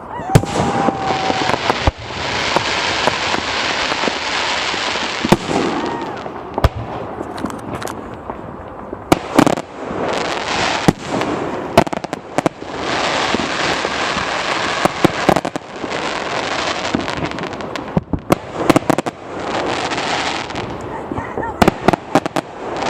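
Fireworks going off: repeated sharp bangs from bursting shells over several long stretches of dense hiss, with short lulls between the volleys.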